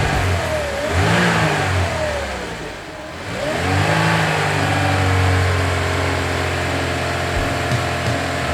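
Vehicle engine revving, its pitch rising and falling twice, then settling into a steady run for the last few seconds.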